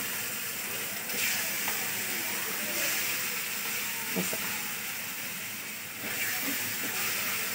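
Fig paste sizzling steadily in ghee in a non-stick frying pan while being stirred with a silicone spatula.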